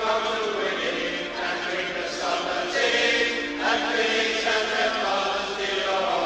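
Football crowd chanting and singing in unison, many voices together, played from an old sound-effects vinyl record.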